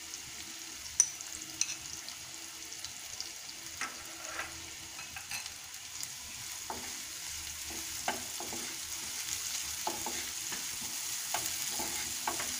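Sliced onions sizzling in hot oil in a nonstick frying pan, stirred with a wooden spatula: a steady sizzle with short scrapes and taps of the spatula on the pan, more frequent in the second half, and a sharp click about a second in.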